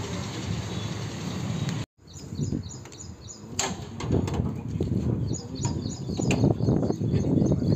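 Steady outdoor noise, then metal clicking and rattling as a stainless steel door is handled, growing louder near the end, with birds chirping.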